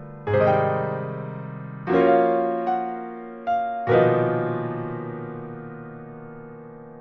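Slow, sparse piano music. A chord is struck about a quarter second in and another near two seconds. A single higher note follows, then two chords close together around three and a half to four seconds, the last left to ring and fade away.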